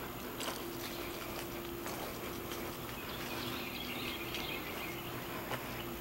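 Footsteps on pavement, irregular scattered clicks over a steady low hum. A brief higher, rasping sound comes about three to four seconds in.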